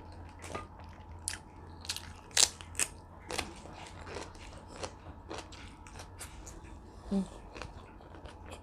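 Crunchy food being bitten and chewed: an irregular run of sharp crunches, the loudest about two and a half seconds in.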